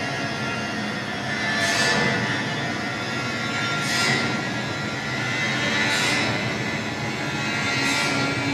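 Electronic noise soundscape of an art installation: a dense, steady wash of noise like a distant jet, swelling into a whoosh about every two seconds.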